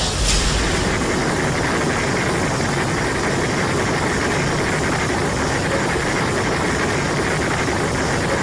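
A steady, even rumble with hiss over it, like a large engine or heavy machinery running, holding the same level throughout.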